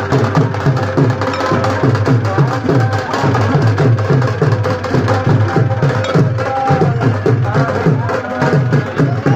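Music with a fast, steady drum beat and a melody over it.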